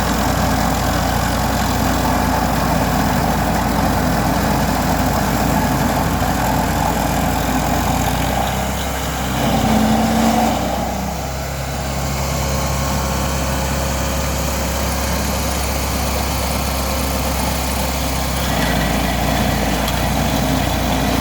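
Vermeer SC382 stump grinder's 37 hp engine running steadily. About ten seconds in the sound briefly rises, then drops to a lower, steadier note, and picks up again near the end.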